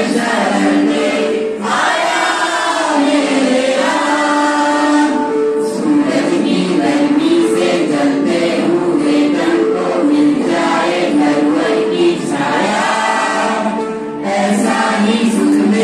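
A group of young women and men singing together as a choir into stand microphones, a slow melody with long held notes and short breaths between phrases.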